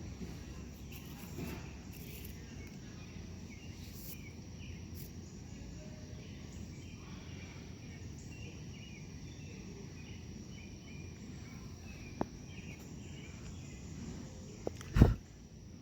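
Outdoor ambience of insects trilling steadily, with faint scattered chirps over a low rumble. A sharp click sounds about twelve seconds in, and a loud thump near the end is the loudest sound.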